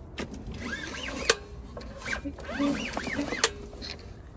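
Parts of a push lawn mower's handle being worked by hand: a few sharp clicks and knocks, the loudest about a second in and near the end, with short squeaky rubbing sounds between them.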